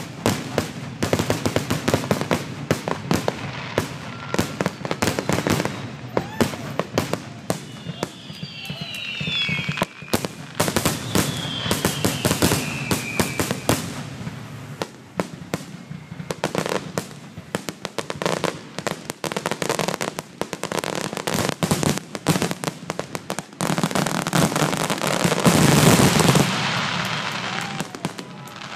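Fireworks finale: a dense, rapid barrage of aerial shell bursts, with falling whistles about a third of the way in. Near the end it swells into a loud, continuous crackle.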